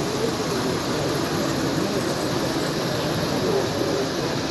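Steady exhibition-hall hubbub: a crowd murmuring, mixed with model trains running round a layout of metal track.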